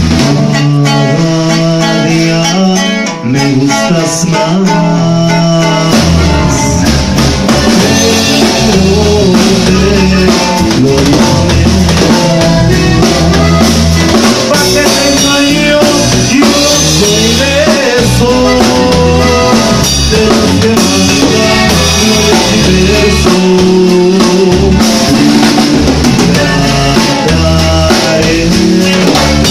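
A live band plays a rehearsal, led by a drum kit and an electric bass guitar, with a melody line over them. The low end fills in about six seconds in.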